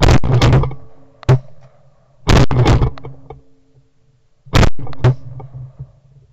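Shotguns firing at teal flying over decoys: a rapid volley of about seven shots from more than one gun. The three loudest shots come about two and a quarter seconds apart.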